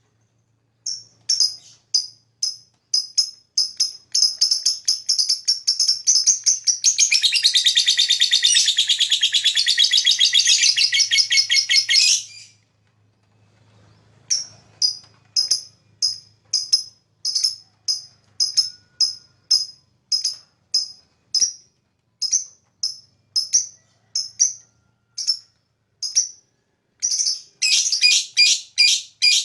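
Lovebird calling: sharp high chirps, one or two a second, that speed up into a long, fast chattering trill (the song lovebird keepers call ngekek). The trill stops suddenly about twelve seconds in. After a short pause the chirps resume, with another burst of rapid trilling near the end.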